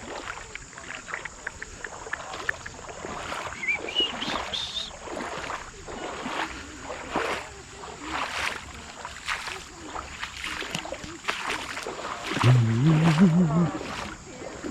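Creek water sloshing and splashing in a series of irregular strokes, about one a second. Near the end comes a short, loud, low voice-like sound.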